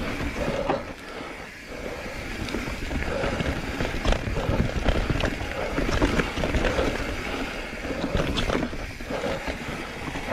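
Mountain bike riding over rough singletrack: a continuous rumble of tyres on dirt and stones, with sharp knocks and rattles from the bike as it hits bumps, and wind on the microphone.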